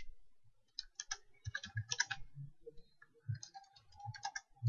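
Typing on a computer keyboard: an irregular run of soft key clicks starting about a second in, as a short phrase is typed.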